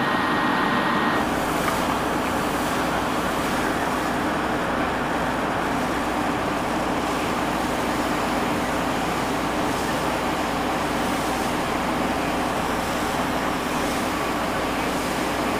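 Fire hose jetting a steady stream of water onto the pavement, with a vehicle engine running steadily underneath.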